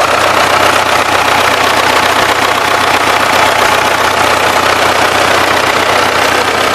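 SMD-18 four-cylinder diesel engine of a DT-75M crawler tractor running steadily with a light knock still present after new oversize connecting-rod bearing shells were fitted; the owner suspects a worn connecting rod or crank journal.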